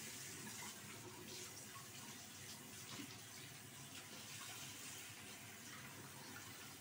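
A bathroom sink faucet running a thin stream into the basin, faint and steady.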